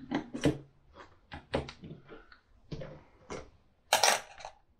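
Small clicks and taps of handling as an M.2 SATA SSD is seated and fastened on a USB adapter board, about a dozen in all, with a louder brief scrape about four seconds in.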